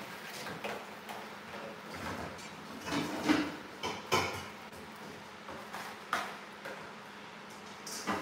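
Scattered knocks and clatter of pots and lids being moved about while someone rummages for a lid to fit a saucepan. The loudest knocks come about three to four seconds in and again around six seconds.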